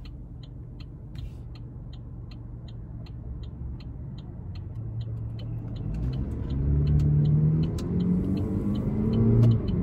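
Car engine running inside the cabin, with a turn signal ticking steadily about two and a half times a second. From about six seconds in, the engine gets louder and rises in pitch as the car accelerates.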